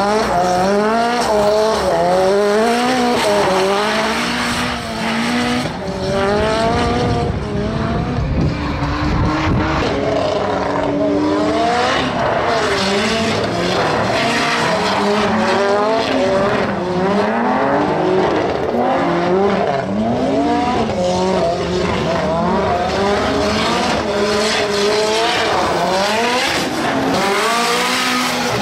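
Nissan S13 drift car's engine revving up and down over and over as it slides sideways, with the rear tyres squealing under wheelspin.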